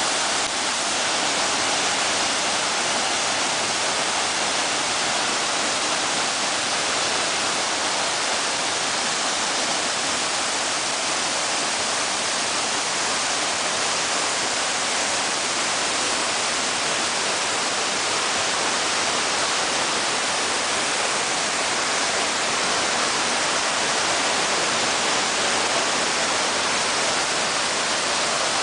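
Tiffany Falls pouring into its plunge pool from close by: a steady, even rush of falling water, mostly hiss with little low rumble.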